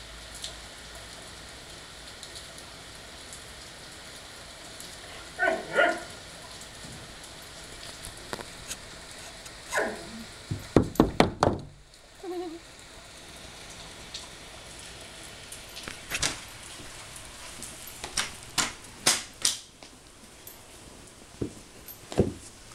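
Light rain hissing steadily on a concrete patio, broken by the sharp clicks of a pharaoh hound's jaws snapping shut as it bites at the falling drops: a quick run of snaps a little before the middle and a few more, spaced out, later on.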